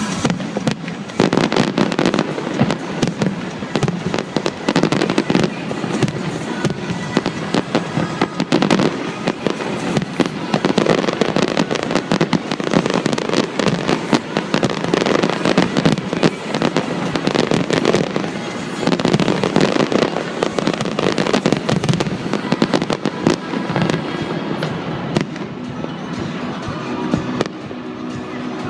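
Fireworks display: a rapid, continuous barrage of bangs and crackles, easing off a little near the end.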